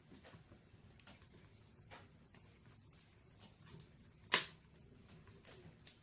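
Wood fire crackling in a fireplace: scattered small crackles, with one loud, sharp pop about four seconds in.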